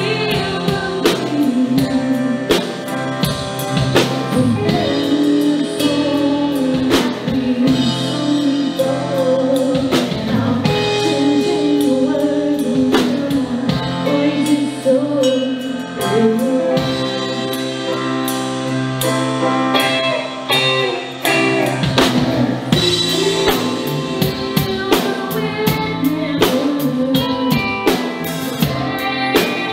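Live band playing a ballad: a woman singing lead over drum kit, bass guitar, electric guitar and stage piano, with steady drum hits.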